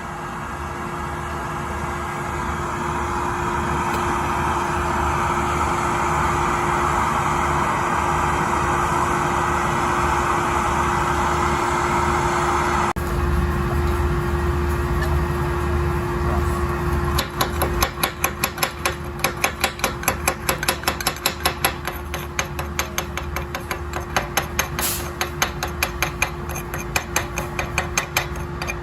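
Welding on galvanized steel sheet: a steady arc hiss with a low hum under it for about thirteen seconds, then it cuts off. From about two thirds of the way in, a fast, even run of sharp knocks and crackles follows, about two or three a second.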